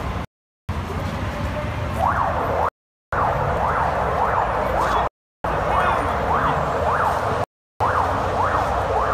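An emergency-vehicle siren in a fast up-and-down yelp, about two rises a second, starting about two seconds in over steady street noise. The audio cuts out briefly every couple of seconds.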